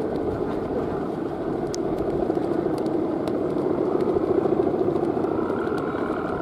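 The bamboo-bow hummer (guangan) on a giant Balinese kite droning steadily in the wind: a wavering low hum with overtones, joined about five and a half seconds in by a higher steady tone.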